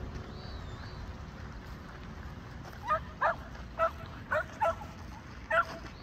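A Shetland sheepdog barking: about six short barks in quick succession, starting about halfway through, over a steady low rumble.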